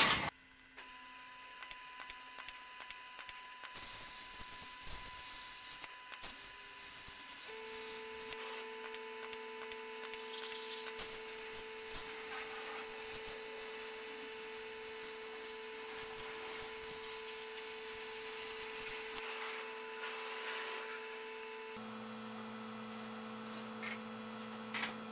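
CNC plasma table cutting steel plate: a steady electrical hum with a few held tones under a hiss, the tones shifting about 7 seconds in and again about 22 seconds in, with the hiss dropping away near 19 seconds.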